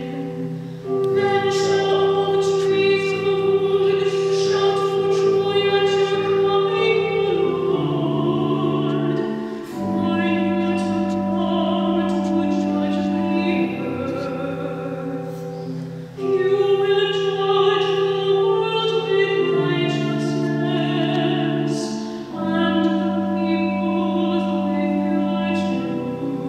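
A woman singing with organ accompaniment, in phrases of long held notes.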